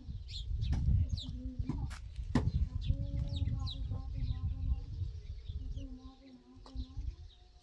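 Small birds chirping over and over, mixed with lower, drawn-out bird calls, over a steady low rumble. Two or three sharp knocks come in the first two and a half seconds.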